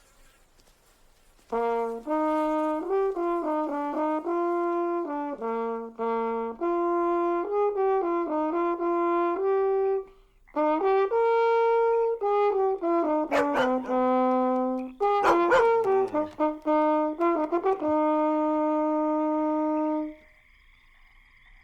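Background music: a brass instrument playing a slow melody of held notes. It starts about a second and a half in, pauses briefly about halfway, and stops near the end.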